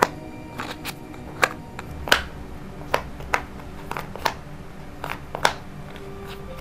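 Cardboard jigsaw puzzle pieces being handled and set down on a table: about ten sharp, irregular clicks and taps.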